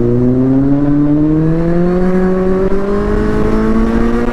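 Kawasaki Z800's inline-four engine running under steady throttle, its exhaust note rising slowly and evenly in pitch as it pulls.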